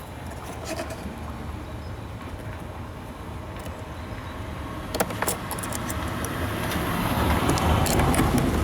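Low rumble of a motor vehicle growing steadily louder toward the end, with a few sharp clicks about five seconds in and again near the end.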